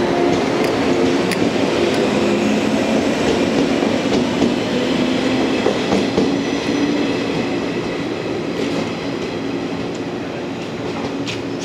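JR West 115 series electric train pulling away: the motors hum and the wheels click over the rail joints, and the sound fades slowly as the train moves off.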